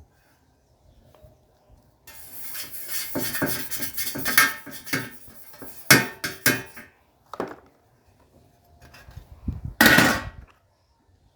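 Small hard objects clattering and clicking as they are handled, with a dense stretch of rattling after a quiet start, a single click midway and one louder clatter near the end.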